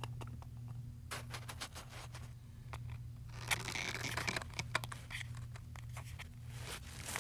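Light scraping, rustling and clicking of twine and twigs being handled as sticks are lashed together, with a denser spell of scraping a little past the middle, over a steady low hum.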